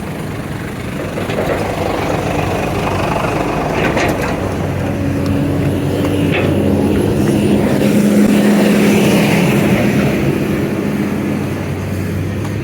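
Motor vehicle engines running close by in road traffic, a steady engine hum under tyre and road noise that grows louder around the middle and eases off near the end.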